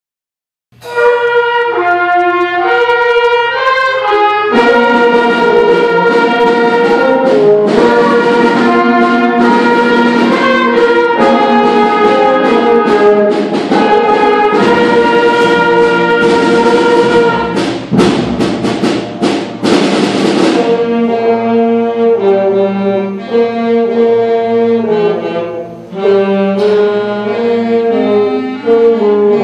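Sixth-grade school concert band of clarinets, saxophones, French horn and flutes playing a piece, starting about a second in. The full band comes in at about four and a half seconds, with a run of sharp percussion hits near the two-thirds point, then the playing turns lighter.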